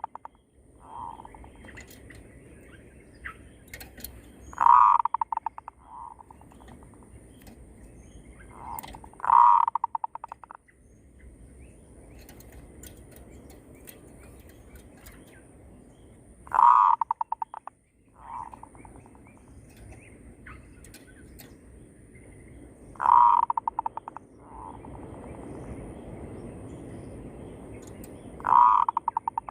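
Zebra doves (perkutut) cooing. There are five phrases, one every five to seven seconds. Each starts with a short soft note, then a loud run of rapid staccato coos that trails off.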